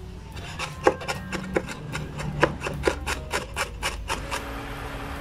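Knife blade chopping rapidly on a bamboo cutting board, mincing, about four sharp chops a second. The chopping stops shortly before the end, and a steady hiss follows.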